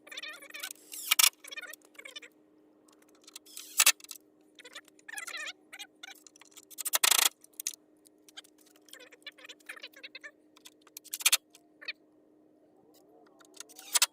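Headlight assembly being fitted back onto a car: irregular plastic clicks and rattles with four sharp snaps and some short squeaks, over a steady low hum.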